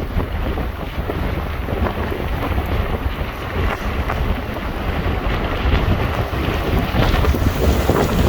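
Strong gusting wind buffeting the microphone, a continuous rushing noise heaviest in the low end, growing louder about seven seconds in.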